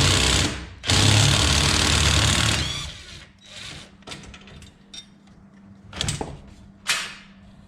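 Cordless power driver with a socket running in two bursts of about one and two seconds, backing out a bolt. Two short sharp clicks follow near the end.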